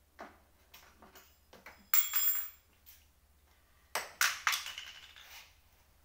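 Office-chair parts being handled: light knocks and clicks, then a loud metallic clatter with a short ring about two seconds in, and a cluster of hard knocks about four seconds in that die away.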